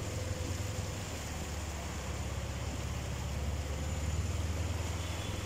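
A vehicle's engine running with a steady low drone under a continuous wash of noise from wheels moving through floodwater on a submerged street.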